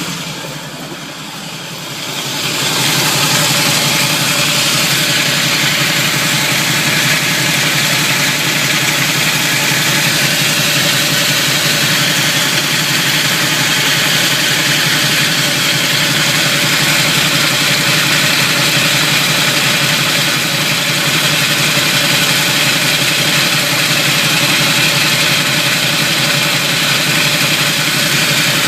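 Chevrolet Camaro engine idling low with a steady grinding noise, which the owner suspects comes from the flywheel, starter or torque converter; the flywheel teeth are slightly chipped where the starter meets them. The sound dips briefly about a second in, then runs on steadily.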